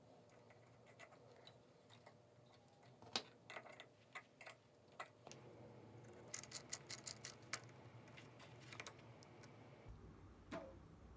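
Faint scattered clicks and taps of small plastic parts as a propeller and spinner are fitted onto a small RC plane's motor, with a quick run of about eight clicks partway through.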